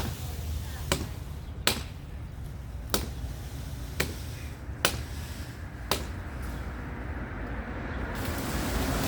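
Sharp chopping blows on wood, seven strikes at roughly one a second, as a limb is cut. A rushing noise builds near the end.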